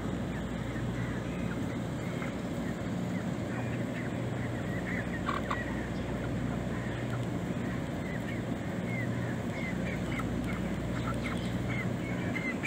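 Birds calling: a string of short, high calls, coming thick and fast from about five seconds in, over a steady low hum.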